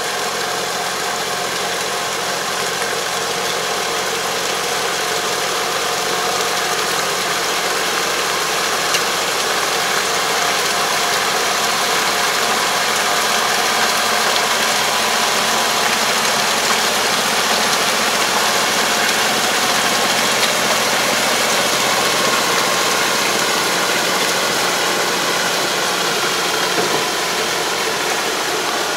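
Iseki semi-crawler tractor's diesel engine running steadily under load while its 3 m Kobashi drive harrow churns the water and mud of a flooded rice paddy during puddling. The sound grows slightly louder over the first half as the tractor comes nearer.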